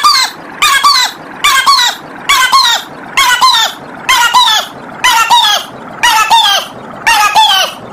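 A short, shrill, squawking call looped over and over, about once a second, each repeat ending on a falling note.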